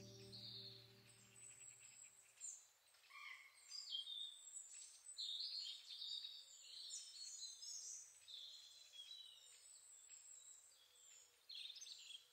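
Faint birdsong: scattered short chirps and whistles. A soft sustained music chord fades out under them in the first two seconds.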